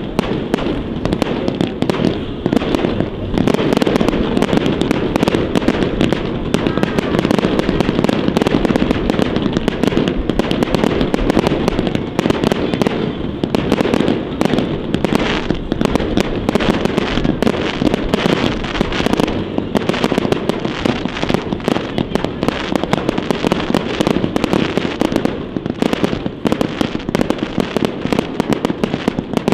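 Fireworks display: a dense, unbroken barrage of shell bursts and crackling reports, many a second, over a steady rumble.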